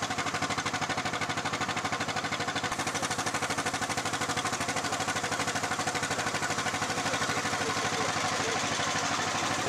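A boat's engine running steadily with a fast, even pulse, heard from on board while under way.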